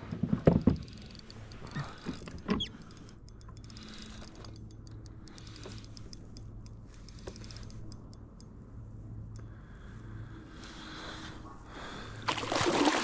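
A few sharp knocks aboard a kayak in the first few seconds, then a steady low hum; a louder rushing noise starts near the end.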